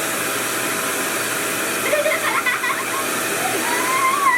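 RevAir reverse-air hair dryer running steadily, drawing a section of hair into its tube with suction. Faint voice sounds come over it about two seconds in and near the end.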